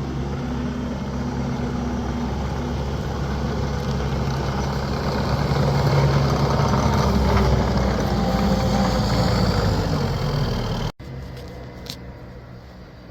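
Heavy machinery running steadily: a motor hum with a slight shift in pitch midway. About eleven seconds in it cuts off abruptly to a much quieter background hum.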